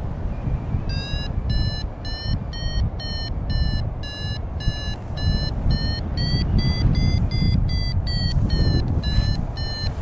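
Flight variometer beeping about two and a half times a second, starting about a second in, its pitch rising a little in the middle and dropping near the end: the climb tone that signals the glider is rising in lift. Wind rumbles on the microphone underneath.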